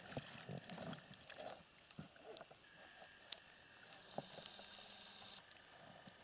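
Near silence with faint water splashing and a few small clicks from an inflatable rubber boat as a seine net is hauled in over its bow by hand.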